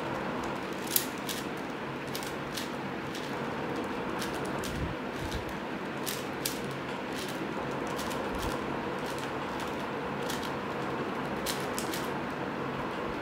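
4x4 Rubik's Cube being turned by hand through an algorithm: irregular plastic clicks and clacks as the layers snap round, with one sharper click about a second in, over a steady background hiss.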